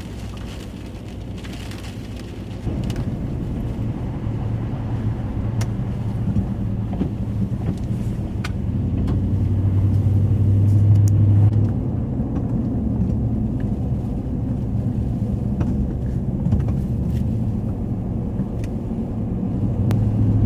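Vehicle engine and tyre noise while driving on snowy roads, heard from inside the cabin: a steady low hum that swells about nine seconds in and drops back about three seconds later.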